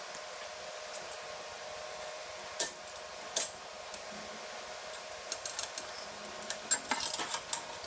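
Metal tool clinks and ticks while Allen screws are undone on the folder: two sharp clinks a few seconds in, then a quick run of small clicks near the end, over a steady faint hum.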